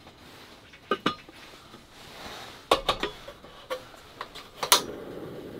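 Stainless-steel cauldron pot and lid clinking as it is set down on a portable gas stove. Near the end comes a sharp click, the loudest sound, then a steady hiss as the burner lights under the pot.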